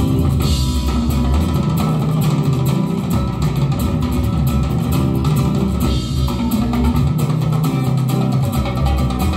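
Recorded music with bass guitar and guitar, played back through a pair of Borresen floor-standing loudspeakers, heavy in the bass.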